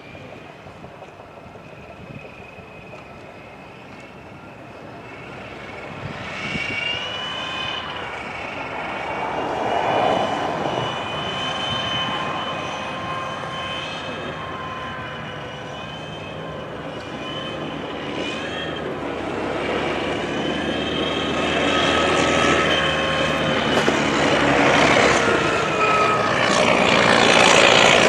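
An aircraft engine running with a steady whine whose pitch wavers slightly, growing steadily louder.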